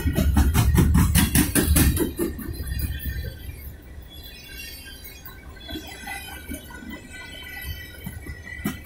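Steel wheels of a freight train's open-top cars rolling past, a rapid clatter of clicks with a high metallic squeal ringing over it. It is loud for the first two to three seconds, drops to a quieter rumble through the middle, and the clatter picks up again near the end as the next trucks pass.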